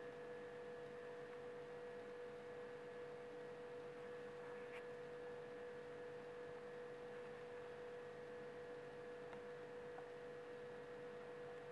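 A faint, steady electronic hum: one unchanging tone with fainter higher tones over a low hiss, with one tiny click about five seconds in.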